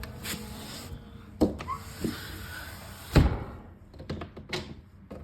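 Steady rain hiss broken by a couple of knocks and then a heavy thud about three seconds in, after which the rain sound drops away, leaving light clicks and taps.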